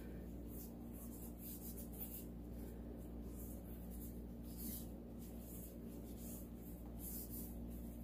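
Faint rustling and light scraping of gloved hands handling a canvas wet with acrylic paint, in short scattered sounds over a steady low hum.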